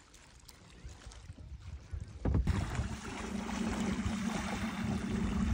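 Faint lapping of water around a kayak. About two seconds in, it gives way abruptly to a steadier rush of wind on the microphone with a low steady hum, growing louder towards the end.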